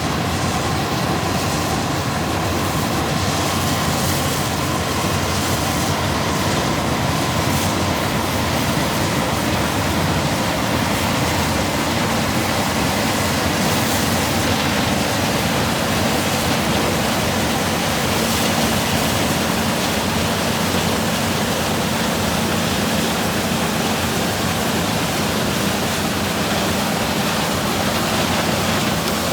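John Deere 9670 combine running steadily while harvesting corn. The engine, threshing and corn head make an unbroken even noise with a low hum beneath it.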